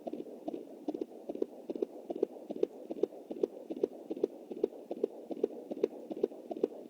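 Fetal heartbeat heard through a handheld fetal Doppler's speaker at 20 weeks: fast, even whooshing pulses, about two and a half beats a second.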